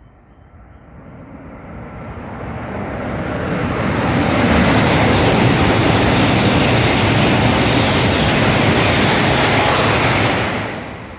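Coupled Yamabiko–Tsubasa Shinkansen train passing through the station at high speed. It builds steadily as it approaches, then a loud, steady rush of wheels and air lasts about six seconds while the cars go by, and it cuts off suddenly near the end as the last car passes.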